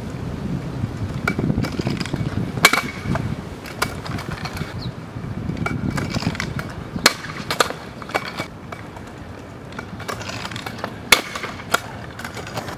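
Razor kick scooter's wheels rolling on a hard outdoor court, the rumble swelling twice as the rider builds speed. Several sharp clacks come as the spinning scooter and its wheels strike the ground during flip attempts, twice as a pair about half a second apart.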